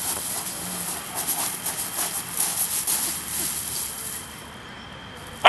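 A dog scrabbling and digging in loose gravel: paws scrape and the small stones crunch and rattle, along with steps on the gravel. The crunching thins out about four seconds in, and a brief sharp sound comes right at the end.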